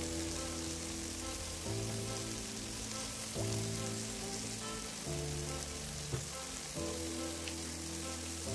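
Tomato, capsicum and onion pieces sizzling in a hot frying pan, a steady hiss, under background music whose held chords change about every second and a half. One sharp click about six seconds in.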